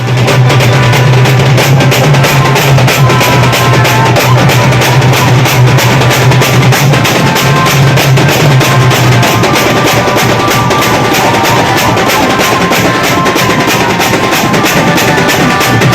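Wedding band music: fast, dense drumming with a melody on top and a low steady bass that drops out about nine seconds in and comes back near the end.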